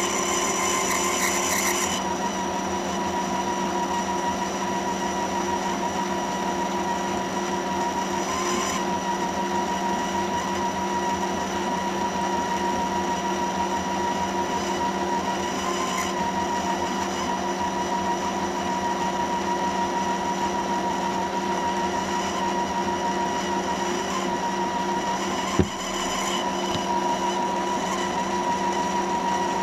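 Metal lathe running steadily while a boring bar cuts inside the bore of a muzzle-brake workpiece: a steady motor and gear whine with a high tone above it. Short rises of higher cutting noise come and go a few times, and there is a single sharp click near the end.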